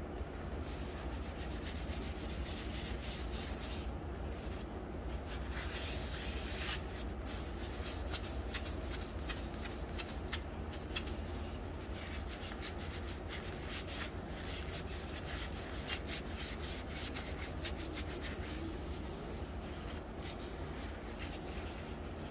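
Steady rubbing and scrubbing with many small clicks and taps, denser and louder for about a second some six seconds in, over a low steady hum.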